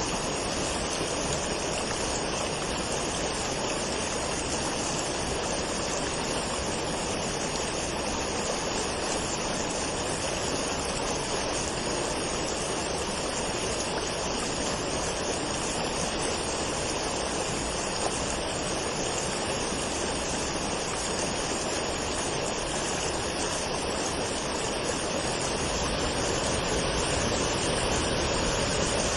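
Waterfall: water falling and rushing in a steady, even roar.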